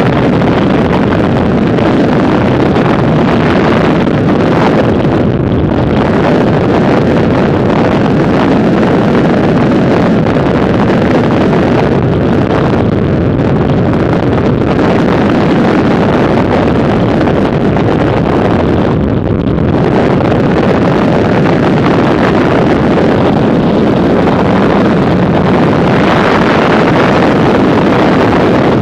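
Loud, steady roar of freefall wind blasting over a skydiver's camera microphone.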